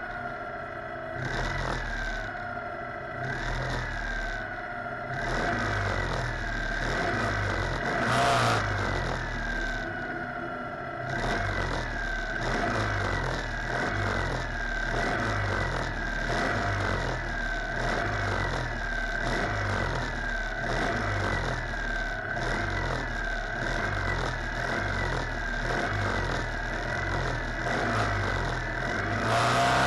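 The 602 cc racing buggy's engine ticking over on the start grid. Its note sags and picks up again about once a second, with a brief louder surge about eight seconds in and more revs near the end.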